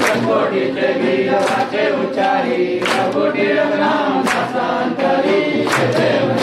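A group of voices sings a Hindu devotional aarti in unison, with a sharp hand-clap beat about every second and a half.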